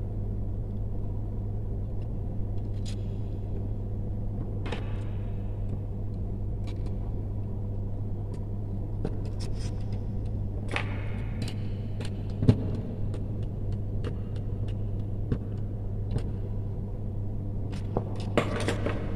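A steady low hum with light clicks, knocks and rustles from hands handling a plastic float switch, a plastic junction box and wires. The sharpest knock comes about two-thirds of the way in.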